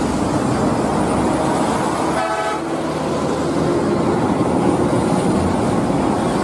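Coach buses driving past one after another, a steady rush of engine and road noise, with one short horn toot about two seconds in.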